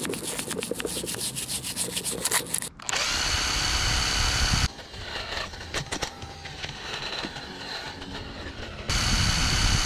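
A steel wire brush scrubs the aluminium castings of a Honda CBX125 engine by hand in quick scratchy strokes. A power drill spinning a wire brush runs in two loud steady spells, one about three seconds in and one near the end, with more hand brushing between them.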